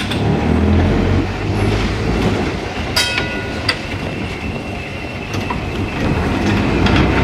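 Vintage open-top double-deck electric tram running along its track, a steady low rumble of wheels on rail that swells as it draws near. A brief metallic ring about three seconds in.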